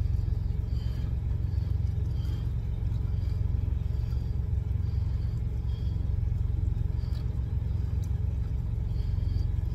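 Steady low rumble of an idling truck engine, with faint light scrapes of a spoon in a tin can.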